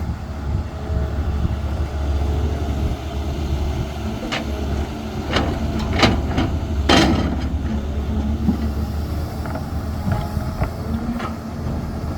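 CAT 320 hydraulic excavator's diesel engine running steadily with a low rumble, broken by a run of sharp knocks and clanks from about four seconds in, the loudest about seven seconds in with a short ringing tail, and a few lighter knocks near the end.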